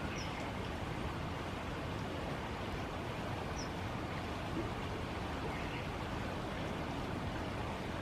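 Steady rushing of flowing stream water, with two faint, short, high bird chirps, the first just after the start and the second a few seconds later.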